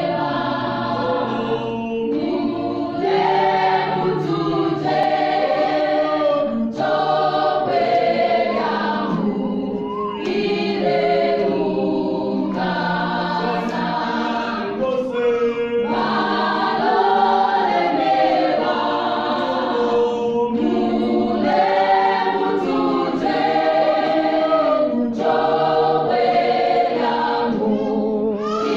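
A choir singing a gospel hymn, several voices in harmony, continuously at a steady level.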